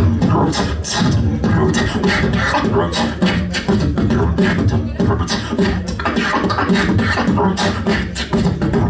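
Human beatboxing amplified through a handheld microphone and PA: a fast, unbroken run of mouth-made kick, snare and hi-hat hits over a low, pitched vocal bass line.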